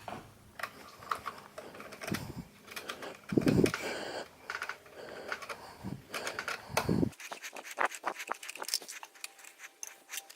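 Scratching, scraping and small clicks of hands and a tool working loose the memory access panel on the bottom of a late-2009 iMac, with a few dull bumps and a quick run of light clicks near the end.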